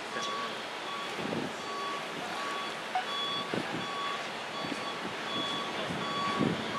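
Reversing alarm of a truck pulling a lowboy trailer, beeping steadily in an evenly spaced repeating pattern as the rig backs up.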